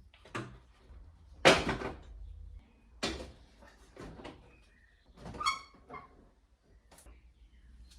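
A series of plastic knocks and clunks, the loudest about a second and a half in, with a short squeak about halfway through, as a car's front bumper and its fog-light connectors are worked loose by hand.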